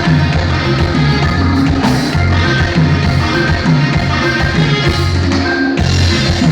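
Norteño band music: a steady bass line under held accordion-like melody notes, with a brief break in the band about three-quarters of the way through.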